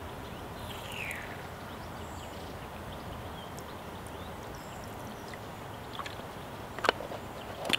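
A thin jet of filtered water spraying from a pressurized Lifesaver Liberty filter bottle into a mouth, over a steady rush of running water. Two sharp clicks come near the end.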